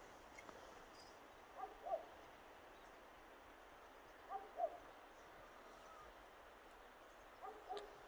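An animal's short pitched calls, each a quick pair, about every three seconds, over a faint steady hiss.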